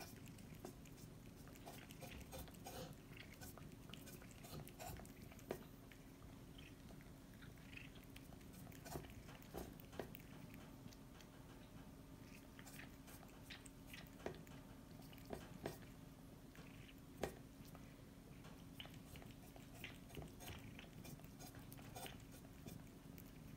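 A cat licking from a bowl: faint, irregular wet clicks of its tongue, over a steady low hum.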